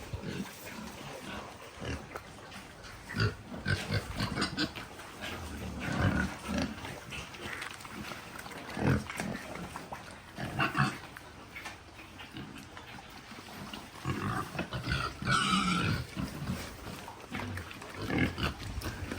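Pigs grunting in short, irregular calls, with a louder, higher-pitched call about two-thirds of the way through.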